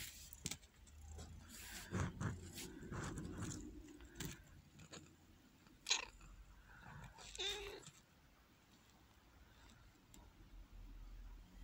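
Faint rustling and crackling of dry straw bedding in a newborn kittens' nest, with scattered soft clicks and a brief faint squeak a little past the middle.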